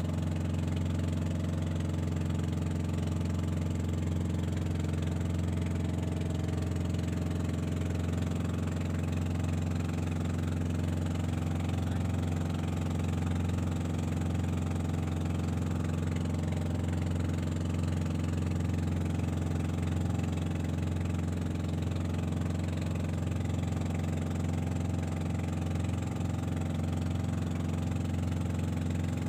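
Motorized outrigger boat (bangka) engine running at a steady speed, an even low hum that does not change.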